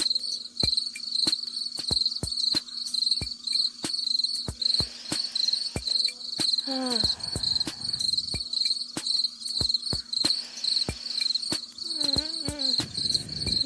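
Crickets chirping steadily in a fast high pulse, with sharp clicks scattered throughout. There is a short falling pitched sound about seven seconds in and another brief wavering one near the end.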